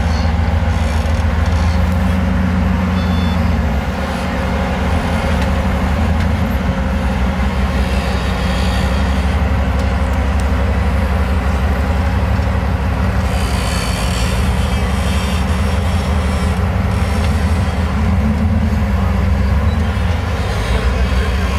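Off-road vehicle engine running under load while rock crawling: a loud, steady deep rumble with no revving.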